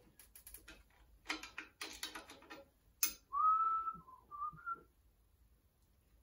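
A man whistling a few short notes, after light metal clicks and taps from a steel tube being turned and set in a tube notcher.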